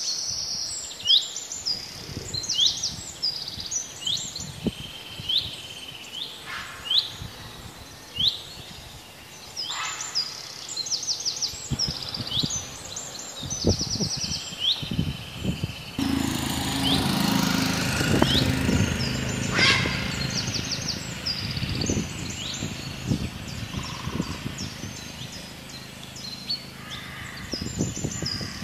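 Songbirds chirping over and over: short sharp calls and quick trills, against steady outdoor background noise. About halfway through, a louder rush of noise swells for a few seconds and then fades.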